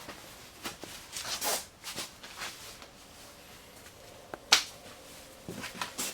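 Scattered light clicks and rustling handling noises, with one sharp, loud click about four and a half seconds in.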